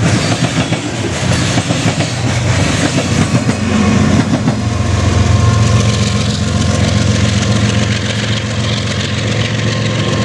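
Freight cars rolling past with a clickety-clack of wheels over the rails, then from about four and a half seconds a diesel locomotive's engine comes in as a steady low drone over the rolling noise.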